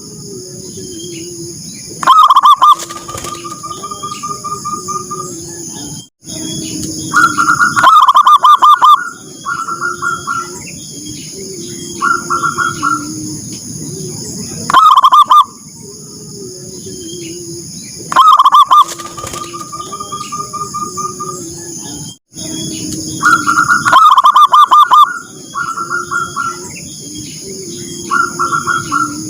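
Zebra doves (perkutut) cooing: loud bursts of rapid staccato coos every few seconds, with softer lower cooing between them and a steady high hum behind. The same sequence of calls repeats about every 16 seconds, as a looped lure recording.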